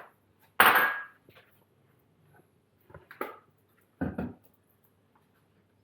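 Bowl and utensils being handled on a kitchen counter: a loud clatter about half a second in, then a few shorter knocks and clinks around three and four seconds in.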